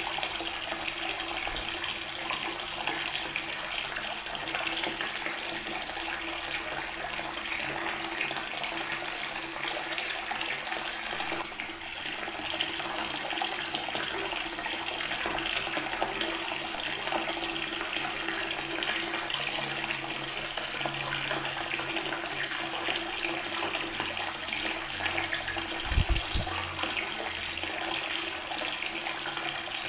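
Water tap running steadily, the stream splashing onto natural stone. A brief low thump about 26 seconds in.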